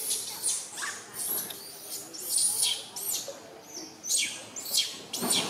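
Short, very high-pitched animal squeaks or chirps, repeated about every half second, each sliding down in pitch.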